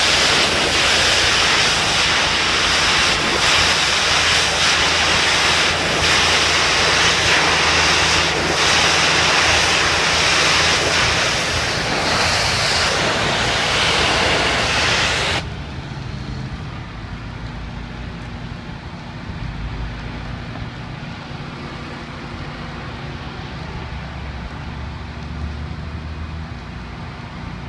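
Pressure-washer wand blasting high-pressure water onto awning fabric: a loud, steady hiss of spray. The spray cuts off suddenly about fifteen seconds in, leaving a quieter, steady low rumble.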